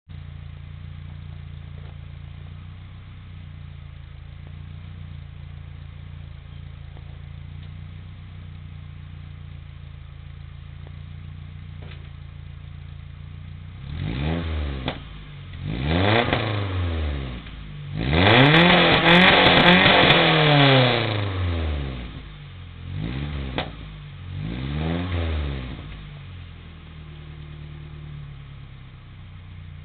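Nissan 240SX (S13) KA24E 2.4-litre four-cylinder breathing through a straight-pipe exhaust with a Magnaflow muffler. It idles steadily, then about halfway through it is revved: two short blips, one longer and higher rev held for a few seconds, then two more quick blips. After that it settles back to idle.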